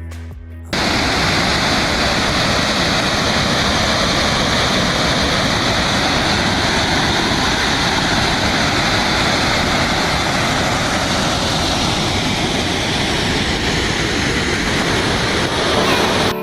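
Waterfall running: a loud, steady rush of falling water. Music cuts off just under a second in, and piano music starts right at the end.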